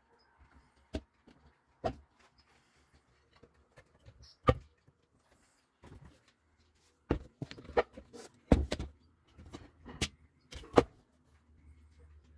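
Wooden lid of a homemade bucket rat trap being handled on a plastic bucket: a few sharp knocks, then a quicker run of clacks and knocks about seven seconds in.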